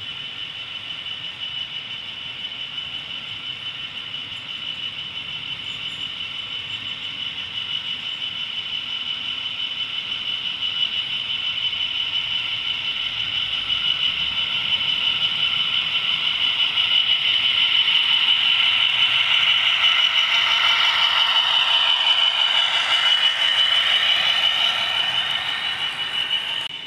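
OO gauge model Class 66 locomotive and its hopper wagons running on outdoor track: a steady high motor whine over the rattle of small wheels on the rails. It grows steadily louder as the train comes close and passes, then drops off sharply near the end.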